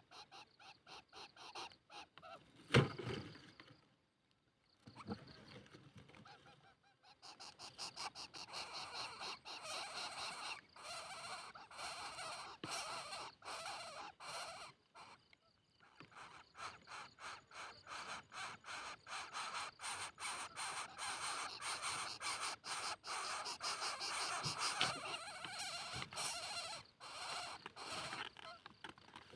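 Coucal chick calling in long runs of rapid, harsh pulses, several a second, with short breaks about four seconds and fifteen seconds in: the noisy calls of a coucal nestling at feeding time.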